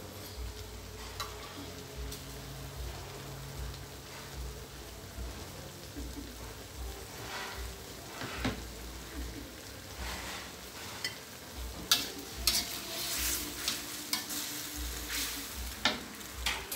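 Pork and onion flower stalks sizzling in a steel wok, with a few light clicks. In the last few seconds a spatula scrapes and knocks against the wok as the stir-fry is tossed.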